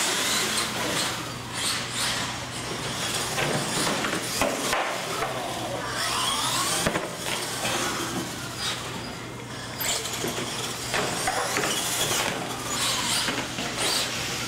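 Radio-controlled monster trucks racing across a concrete floor: their motors whine, rising and falling in pitch as they speed up and slow down, with tyre and chassis noise.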